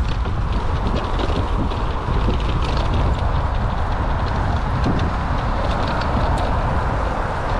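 Electric mountain bike with a Bafang BBS02 mid-drive ridden off-road: a steady rumble of wind and tyre noise with many quick rattles and clicks from the bike jolting over rough ground.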